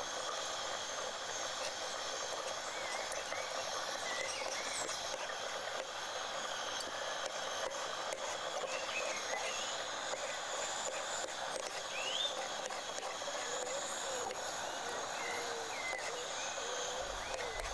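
Outdoor ambience: a steady hiss with short chirps of birds now and then, over the light scraping of two forks shredding cooked food on a tray.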